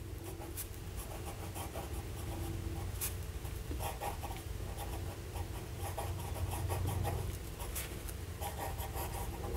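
Medium steel nib of a Faber-Castell Grip fountain pen writing on paper: soft, faint scratching strokes as a word is written out, over a steady low hum.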